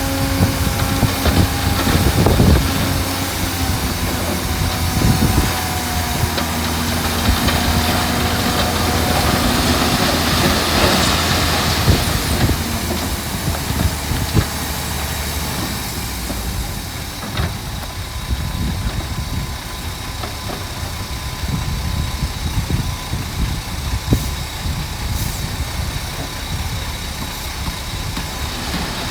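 Heavy diesel earth-moving machinery running, a steady engine note that gives way to a broader rumble about halfway through, with a few sharp knocks.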